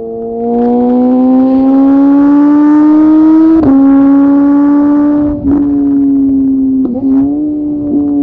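Motorcycle engine accelerating under load: its pitch climbs steadily for about three seconds, drops sharply at an upshift, then runs on with a few brief dips at further gear changes.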